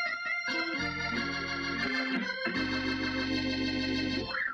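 Organ music: sustained chords over held bass notes, changing a few times, with a tone sweeping up and back down near the end.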